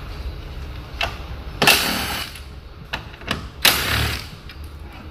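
Cordless impact wrench run in two short bursts of just under a second each, about two seconds and four seconds in, undoing fasteners. A few sharp clicks come between the bursts, over a low steady hum.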